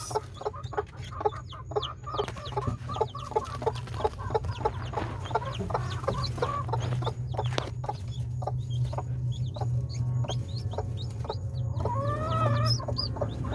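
Broody mother hen clucking in a quick, steady run of several short clucks a second, with a longer drawn-out call near the end. Thin high peeps from her newly hatched chicks come through between the clucks.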